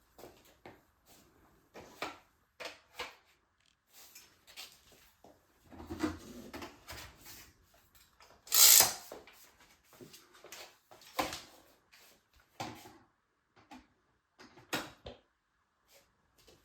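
Scattered light knocks and clicks, as of household objects being handled and set down, with one louder rustling, hissing sound about nine seconds in. No vacuum motor is running.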